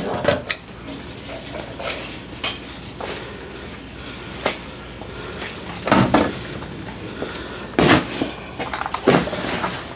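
Scattered knocks and clatters of cluttered household items being bumped and shifted, with louder clunks about six and eight seconds in and a quick run of them near the end.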